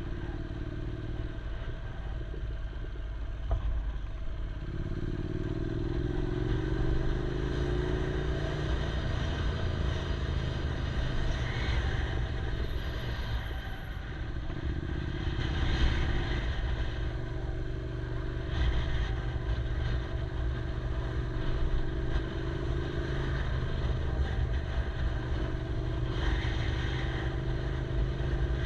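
Yamaha R6 sport bike's inline-four engine running while riding, its note rising and levelling off a few times as the throttle is worked, over steady road and wind noise.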